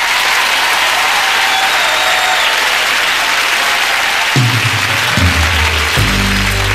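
Studio audience applauding; about four seconds in the band starts playing, low sustained notes coming in under the clapping.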